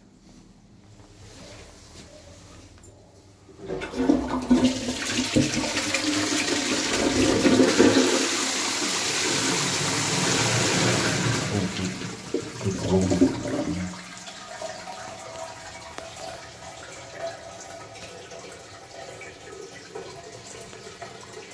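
Armitage Shanks Magnia toilet with a high-level Twyfords Classic cistern flushing. A short knock is followed about four seconds in by a loud rush of water down into the pan, swirling and gurgling until it dies away about fourteen seconds in. After that comes the steady hiss of the cistern refilling.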